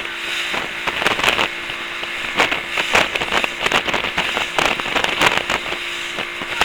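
A steady mechanical hum with irregular crackles and knocks over it.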